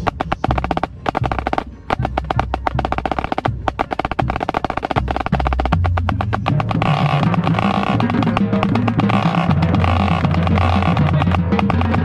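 Marching band drumline playing close up, with rapid snare drum strokes and rolls over bass drums; about seven seconds in, the wind section joins with held chords over the drums.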